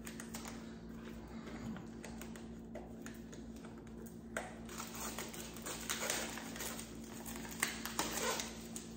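A small cardboard product box being opened by hand: scattered light clicks, taps and scraping rustles of the card, sparse at first and busier from about halfway through, over a steady low hum.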